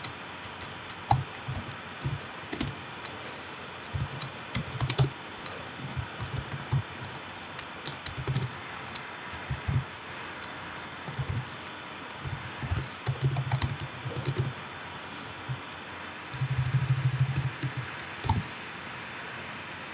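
Typing on a computer keyboard: irregular runs of key clicks with short pauses, and a quicker, louder run of keystrokes near the end.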